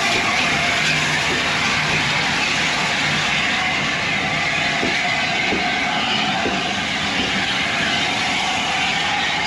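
A heritage railway train running on the track: a steady rushing noise with a few faint clicks about halfway through.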